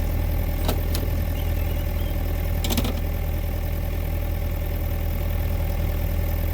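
Bobcat E42 mini excavator's diesel engine running steadily, with a few brief knocks and clatters about a second in and again near the three-second mark.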